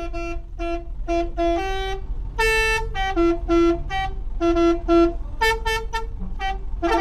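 Bus 'telolet' multi-tone horn playing a tune: a quick run of short, clear horn notes that step between several pitches, some clipped and some held a little longer.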